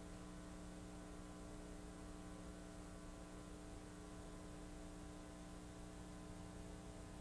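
Faint steady electrical mains hum, several even tones over a hiss, with no other sound.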